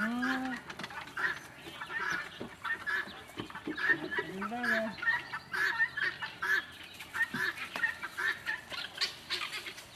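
A flock of chickens clucking, short clucks coming about two or three a second, with a lower drawn-out call rising and falling at the start and again about four and a half seconds in.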